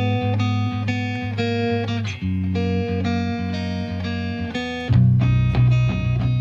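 Background music: plucked guitar notes over a bass line, with the bass growing heavier about five seconds in.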